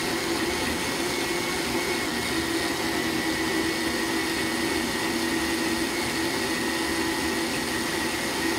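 Black & Decker countertop blender running steadily with a constant whine, blending a thick smoothie of frozen fruit and kale that still needed more blending.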